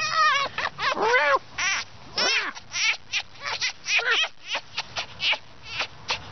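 Red fox giving high, wavering whines that break into a rapid chatter of short squeaky calls, about four or five a second. This is the excited greeting chatter of a tame fox being petted.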